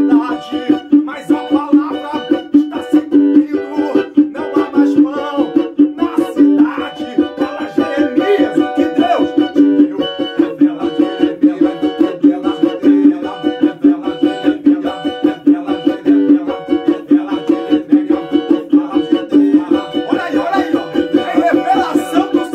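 Cavaquinho strummed fast and steadily in a driving Pentecostal 'corinho de fogo' rhythm, with men's voices singing over it.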